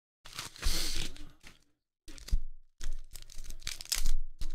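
Paper envelope being torn open and a clear plastic card sleeve crinkling as it is handled, in several short rustling bursts with silent gaps between them.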